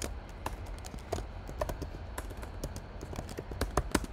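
Typing on a computer keyboard: irregular key clicks, several a second, with a few louder strokes near the end, over a steady low hum.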